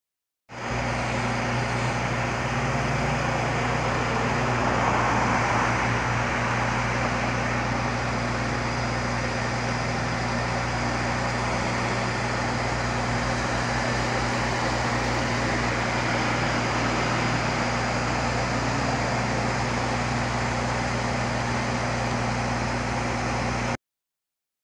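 Road traffic at a busy intersection: a steady engine drone under a wash of road noise, with a vehicle passing and swelling louder about five seconds in. It starts and stops abruptly.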